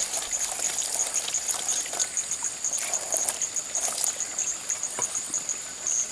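Night insects calling in a rapid, steady high-pitched pulse over a constant rushing of water, with scattered small clicks and taps of knife work on banana leaves.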